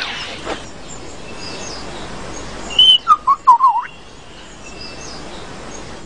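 Lyrebird song: a quick run of loud whistled notes about halfway through, ending in a rising sweep, over quiet forest ambience with faint distant bird calls.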